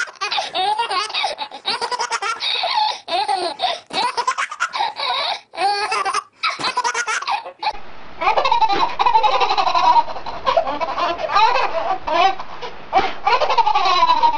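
Babies laughing hard in repeated belly-laugh bursts. About eight seconds in it switches to a different recording of babies laughing and giggling.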